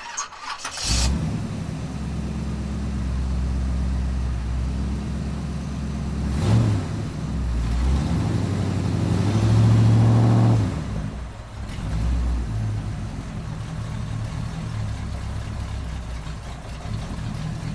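A vehicle engine running under load, its pitch climbing as it revs up, loudest past the middle, with a short rush of noise about a second in.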